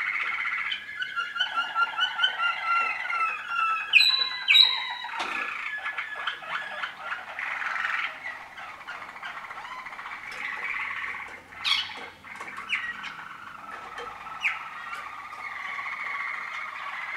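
Waterslager (Malinois) song canaries singing: fast runs of repeated rolling notes, with two loud, sharp swooping notes about four seconds in, then continuous warbling song.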